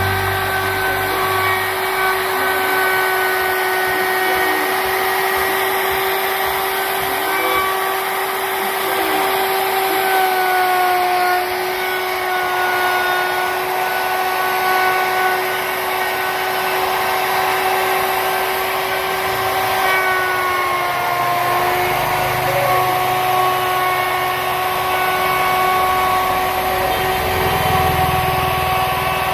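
Electric wood router running at high speed with a steady whine, cutting a bead profile in wood; its pitch dips slightly a few times as the bit takes load.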